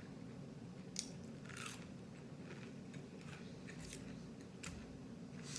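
A person biting and chewing crunchy fried food, with a few crisp crunches spaced a second or so apart over a low steady hum.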